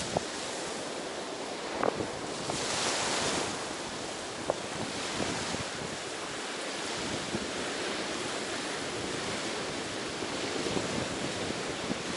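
Ocean waves washing onto the beach in a steady hiss, with one louder wash about three seconds in. Wind buffets the microphone, and there are a couple of brief clicks.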